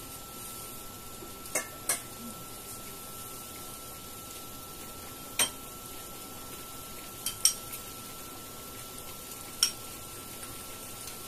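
A metal spoon clinks against a wok in about six sharp, short strikes, over a steady hiss from the simmering braised tofu.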